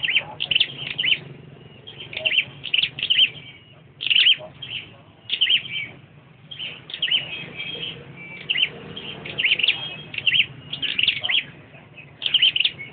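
Caged flowerpeckers calling: quick clusters of high, sharp chirps and trills, coming again every second or so with brief pauses.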